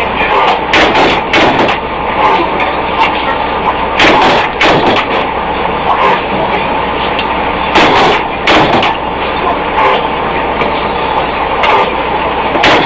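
Loud forging-shop machinery noise: a steady low hum and dense clatter, broken by irregular sharp metal knocks and clanks.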